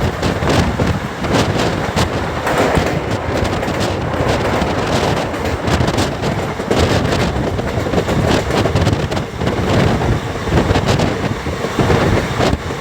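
Passenger train running at speed, heard from on board: a loud steady rumble of wheels on rails with irregular clatter and knocks.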